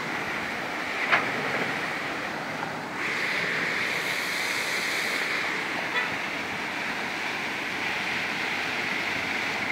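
Small roadside waterfall pouring down a rock face onto stones, a steady rushing that grows louder about three seconds in. The fall is running full after heavy rain.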